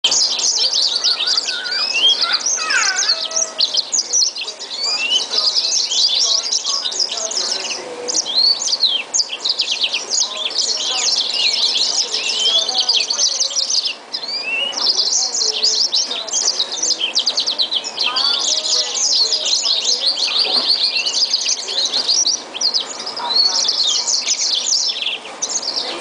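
Green singer × yellow canary mule (hybrid finch) singing a long, fast twittering song of high trills and quick downward-sliding notes, with brief pauses about 4, 8 and 14 seconds in.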